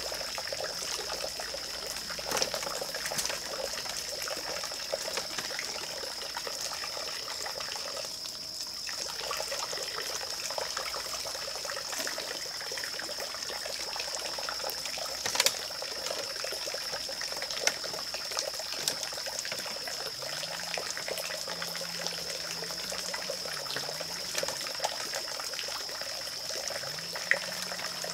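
Forest ambience: a steady high-pitched insect drone over a trickling-water hiss, with a few light knocks. A faint low hum joins about twenty seconds in.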